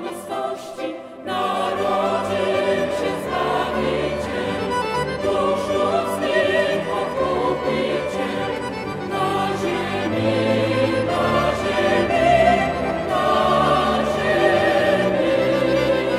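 Mixed choir singing with a string quintet accompanying. The music thins briefly about a second in, then swells again.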